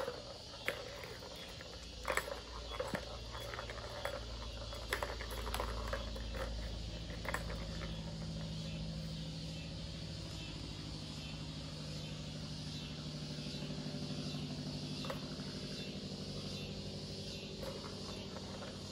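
Low, steady rumble of a motor vehicle engine, with a few sharp clicks in the first half.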